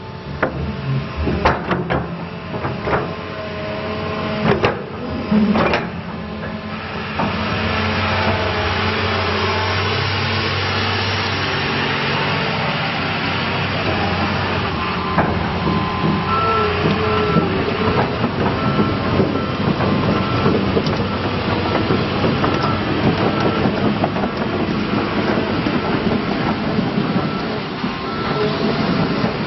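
John Deere 270D LC excavator's diesel engine running under hydraulic load as the boom and bucket work, with sharp metallic clanks from the bucket in the first few seconds. From about halfway, the machine's motion alarm beeps over and over as the excavator moves.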